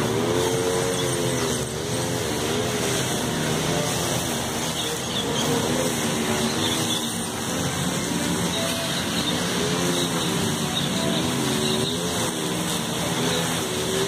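An engine running steadily, its pitch wavering up and down a little.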